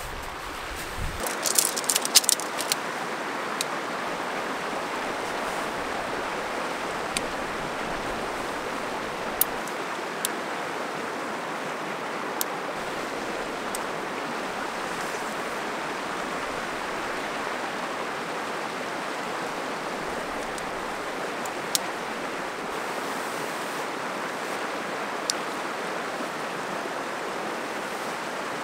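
River rapids rushing steadily, with a few sharp clicks and taps from handling camping gear. The loudest is a quick cluster of clicks about two seconds in.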